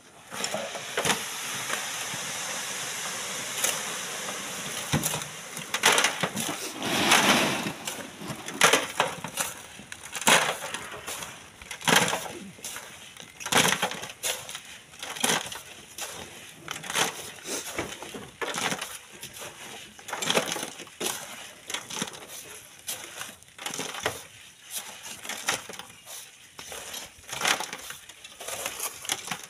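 Sand and rock crunching and clattering during manual sand mining: a steady sliding hiss for the first few seconds, then many irregular knocks and scrapes of stones being dug and knocked loose.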